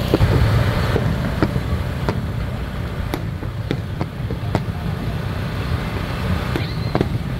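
Aerial fireworks going off: a run of sharp pops and bangs at uneven intervals, roughly one a second, over a steady low rumble.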